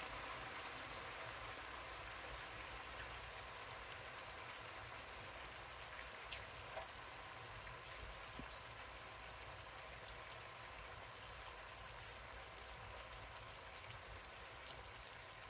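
A pan of food simmering on the stove: a faint, steady sizzling hiss with a few small pops, getting slightly quieter.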